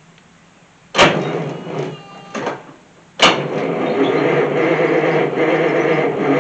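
Starter cranking a Detroit Diesel 6-71 two-stroke diesel that does not fire: a short crank about a second in, then a second crank starting about three seconds in and running on steadily. The owner thinks a single battery gives too little power to start it.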